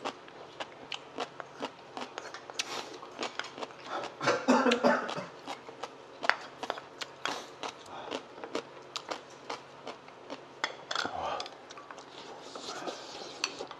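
Metal spoons and chopsticks clicking and scraping against ceramic bowls and plates during eating, many quick clicks through the whole stretch, with short vocal sounds about four and eleven seconds in.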